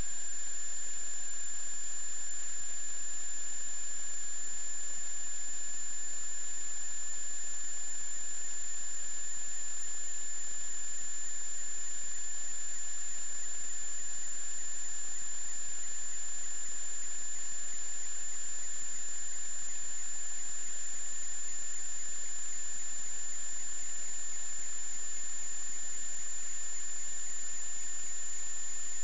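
Steady electronic hiss with two constant whining tones, a high one and a lower one that creeps slightly upward. This is electrical noise on the sewer inspection camera's recording.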